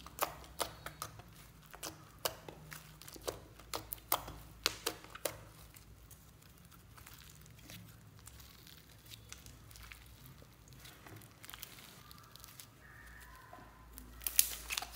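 Slime being squeezed and stretched by hand, crackling with rapid sharp pops for about the first five seconds, then quieter squishing, with a burst of louder pops near the end.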